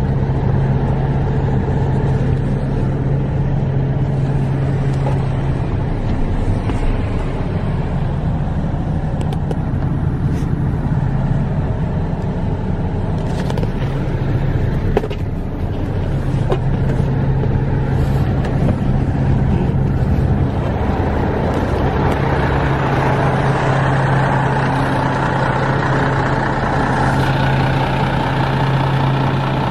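MAN TGS 24.440's 12.4-litre six-cylinder Euro 5 diesel idling with a steady low hum. A hissy, clattery edge builds over the last third.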